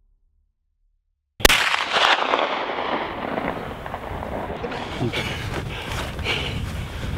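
A .50-calibre muzzleloader fired once, about a second and a half in: a single sharp crack out of near silence. Several seconds of continuing rustling noise with small knocks follow the shot.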